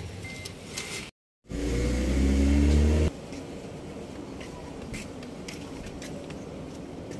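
Isuzu Alterra engine sound, loud for about a second and a half, starting a moment after a short break and stopping abruptly, then a steady lower background noise.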